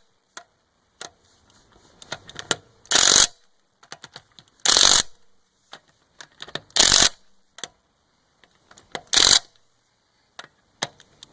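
Craftsman C3 19.2-volt cordless half-inch impact wrench tightening wheel lug nuts: four short bursts of hammering about two seconds apart, one nut at a time, with small clicks and knocks of the socket being moved between nuts.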